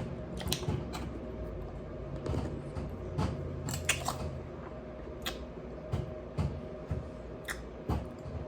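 Eating a bowl of berries, ice cubes and coconut water: about a dozen sharp clicks and knocks at irregular intervals, from spoon and ice against the bowl and from chewing.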